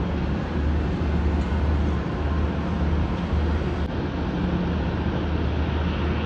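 Distant jet engines of a Boeing 737 airliner on the runway: a steady rumble, strongest in the low end, with a faint hiss above it.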